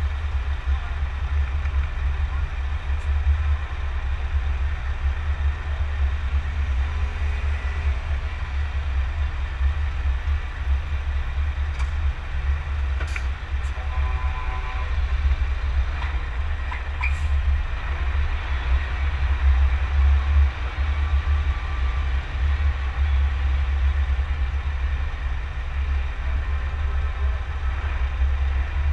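Steady low rumble of a Scania truck driving slowly, mixed with wind buffeting the camera on its cab roof.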